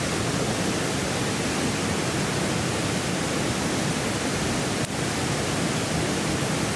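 Steady rush of a mountain stream's flowing water, an even hiss at a constant level.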